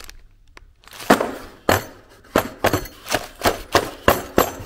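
Stainless steel bolts and mounting brackets clinking against each other as they are handled in a plastic bag and a cardboard box: about a dozen sharp metallic clinks, starting about a second in.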